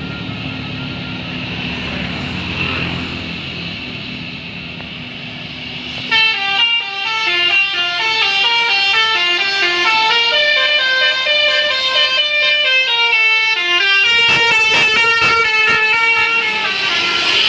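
A vehicle engine runs for the first six seconds. Then a bus's multi-tone telolet horn plays a quick stepping melody for about ten seconds, the tones jumping up and down in pitch.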